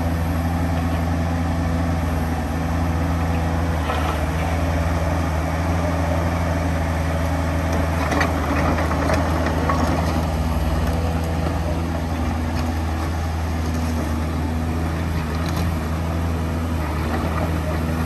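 Kubota mini excavator's diesel engine running at a steady speed, with a few light knocks from the machine now and then.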